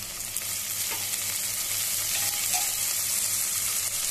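Sliced onion, garlic and green chillies sizzling steadily in hot mustard oil in a pressure cooker while being sautéed until soft, with a metal slotted spatula stirring and scraping against the pot.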